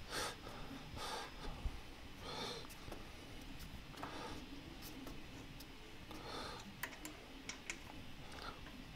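Faint clicks and ticks of small metal hardware, a nut or bolt, handled in the fingers during assembly, with soft breaths through the nose every second or two.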